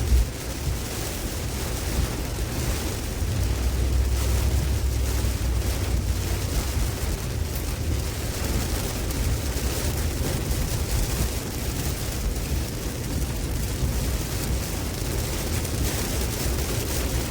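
Tropical storm wind buffeting the microphone: a steady rushing noise with a heavy low rumble that swells in a stronger gust about three to seven seconds in. A brief loud bump right at the start.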